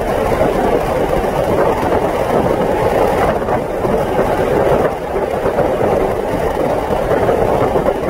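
Steady rumbling cabin noise of a moving vehicle, heard from inside while it travels.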